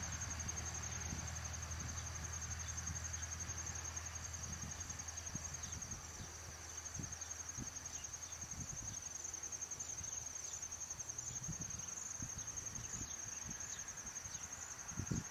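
Field insects trilling in a continuous high-pitched, finely pulsed chorus, over a low steady hum that fades about halfway through. Soft low thumps come and go, with a louder one near the end.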